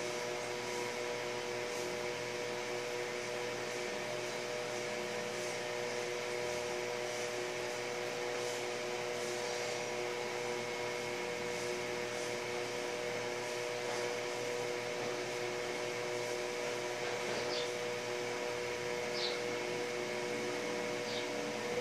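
Steady machine-like hum and hiss with several constant tones, like a running fan or air conditioner. A few faint, short, high chirps come near the end.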